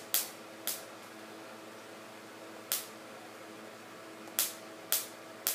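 Six short, sharp clicks at irregular intervals as small plastic toys are handled and set against each other, over a faint steady hum.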